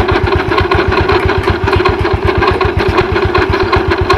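Yamaha Mio Sporty scooter's single-cylinder engine idling steadily, with an even, rapid low beat.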